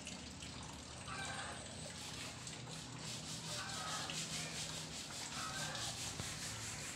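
Faint steady background ambience, with three faint short sounds about one, three and a half and five and a half seconds in.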